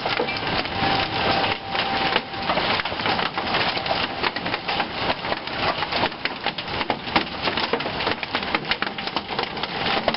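Large hailstones, golf-ball to softball size, hitting hard surfaces in a dense, unbroken clatter of sharp cracks and pops.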